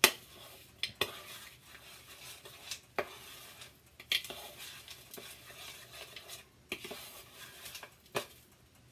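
Metal spoon stirring thick cookie dough in a bowl: a soft scraping with sharp knocks of the spoon against the bowl every second or so, the loudest right at the start.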